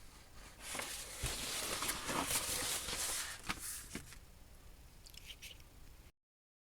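Paper sheets rustling and crinkling as they are handled, with a couple of sharp clicks about three and a half and four seconds in; the sound cuts off to dead silence near the end.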